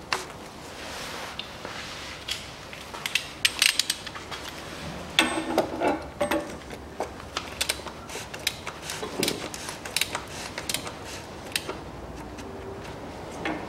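Irregular metallic clicks and clinks of hand tools and parts being worked on the underside of a car engine, with a cluster of sharper clicks around the middle.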